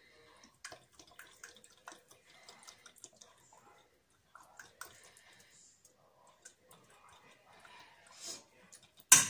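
Cooking oil poured from a bottle into an empty stainless steel pot: a faint trickle with small drips and ticks. A single sharp knock near the end.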